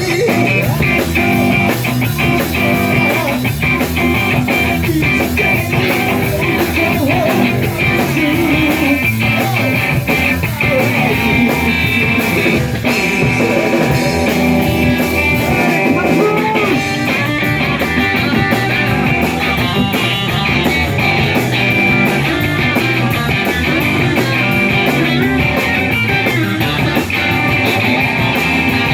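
Rock and roll band playing live, electric guitar over a drum kit in an instrumental passage.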